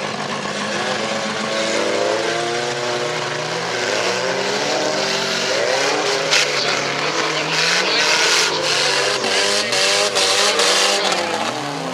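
Several stock-car engines revving up and down at once, their pitches rising and falling over one another. From about halfway in, a loud hiss rises over them, with several sharp knocks of cars striking one another.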